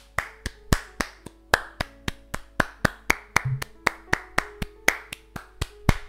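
Hand claps in a steady run of about four a second, clapped in front of and beside a Samson C01 condenser microphone to test how much sound it picks up from the sides. Background music plays underneath.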